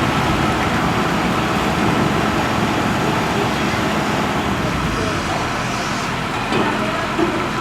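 Tata Hitachi hydraulic excavator's diesel engine running steadily under working load, with a faint steady hydraulic whine; voices can be heard faintly in the background.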